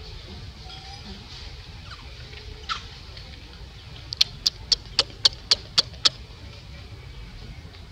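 An animal calling over a steady forest hiss: one sharp squeak sweeping downward a third of the way in, then a run of eight sharp chirps, about four a second.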